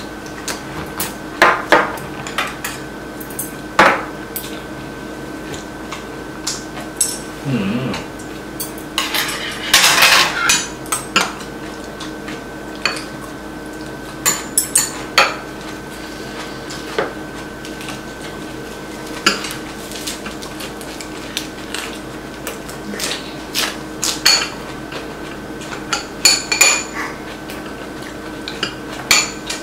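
Metal chopsticks and spoons clicking and scraping against ceramic bowls and plates as people eat, in scattered sharp clinks with a busier stretch about ten seconds in.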